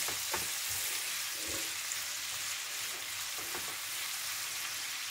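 Prawns sizzling in butter and garlic in a frying pan, a steady hiss, while a spatula stirs them with a few soft scraping strokes against the pan.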